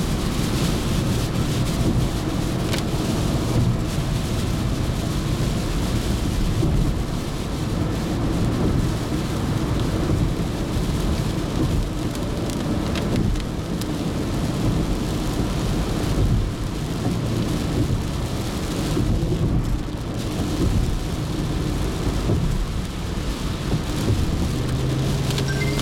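Heavy rain falling on a car's windshield and body, over the steady low rumble of tyres on a wet expressway, heard from inside the cabin.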